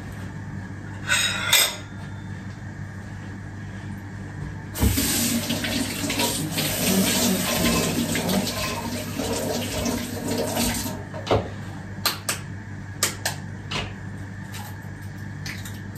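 Kitchen sink tap running for about six seconds, starting about five seconds in and shutting off near eleven seconds. A few short knocks come before and after it.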